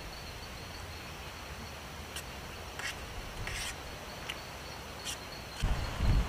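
Forest ambience: a steady high insect whine with a few short, sharp animal calls, then near the end a loud low rumble of wind buffeting the microphone.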